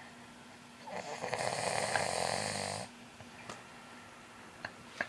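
A person snoring: one snore about two seconds long, starting about a second in, followed by a quiet pause between breaths.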